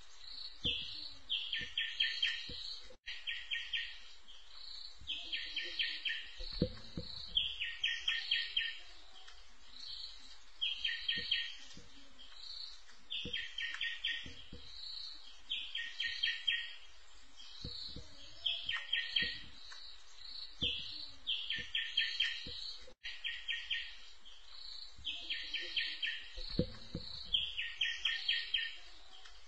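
A recorded bird call played on a loop as a trapping lure. Each phrase is a quick run of evenly spaced clicking notes under higher whistled notes, repeated every second or two. The recording drops out briefly twice, twenty seconds apart, where the loop restarts.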